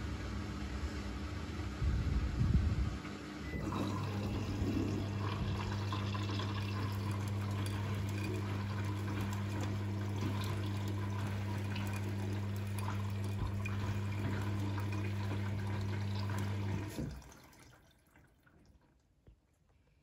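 Siemens iQ300 front-loading washing machine filling with water at the start of a rinse program: water rushes into the drum over a steady low hum, louder and rougher for a moment about two seconds in. The inflow and hum stop abruptly about seventeen seconds in.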